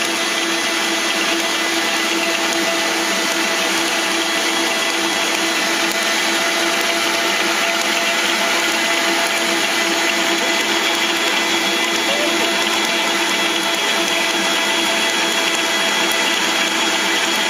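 Stand mixer's motor running steadily at top speed, a dough hook kneading very wet pizza dough in a stainless steel bowl, with a constant motor whine.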